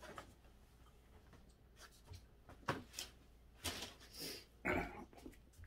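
A few faint, scattered knocks and rustles from a person moving about the room, over a low steady hum.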